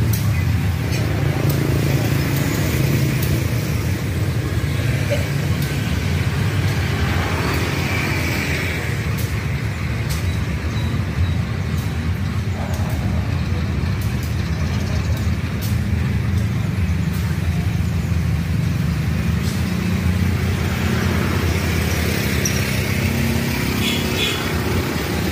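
GE U18C-type diesel-electric locomotive (CC 201) running as it shunts a short string of ballast and flat wagons past, a steady low engine drone with sharp clicks now and then of wheels on the rails.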